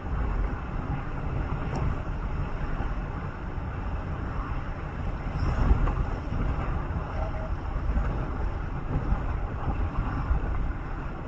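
Steady rumble of a vehicle travelling along a road: engine and tyre noise with no breaks.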